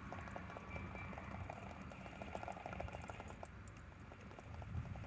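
RC rock-crawler truck working its way over rock: a fast run of small clicks and scrabbling from its tyres and chassis on the stone, over a low rumble.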